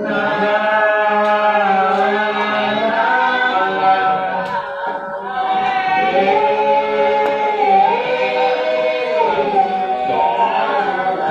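Several voices singing a slow song, holding long notes that move from one pitch to the next.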